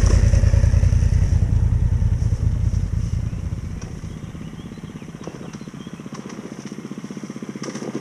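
An adventure motorcycle's engine runs loud as the bike rides close past on a dirt track, then fades over about the first four seconds as it pulls away. A quieter, evenly pulsing engine idle remains after it.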